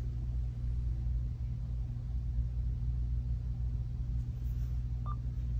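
Steady low hum with a faint short beep about five seconds in.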